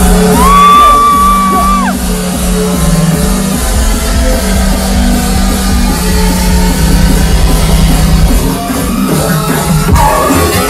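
Loud, bass-heavy electronic dance music played over a club sound system during a live DJ set, with a steady low bass line. Near the start a held high note slides up, holds, and drops away about two seconds in.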